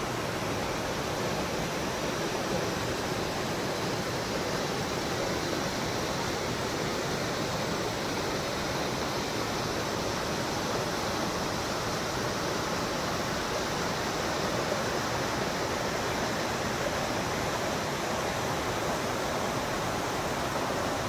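Steady rush of water from a mountain stream, an even, unbroken noise that holds without change.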